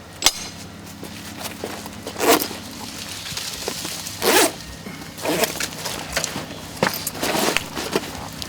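A series of short rustles and scrapes, about six in all, as of gear being handled and packed into bags, over a steady low hum.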